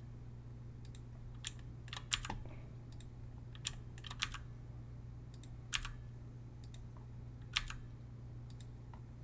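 Computer keyboard keys and mouse buttons clicking: about a dozen single sharp clicks at uneven intervals, over a steady low hum.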